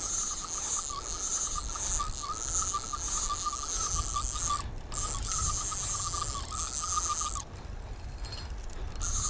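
Fishing reel whirring with a fast ratchety clicking while a hooked wild carp is played on the rod. It breaks off for a moment a little under five seconds in, and again for about a second and a half near the end.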